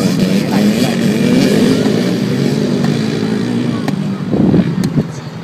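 Motocross dirt bike engine revving up and down as the bike is ridden around a dirt track, growing fainter toward the end as it moves away.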